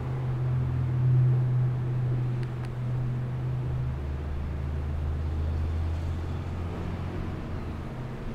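A steady low droning hum, like an engine, that drops to a lower pitch about halfway through.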